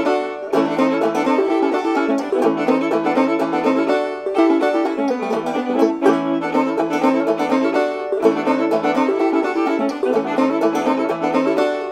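Clawhammer banjo playing an old-time tune, a dense, steady run of quick plucked notes.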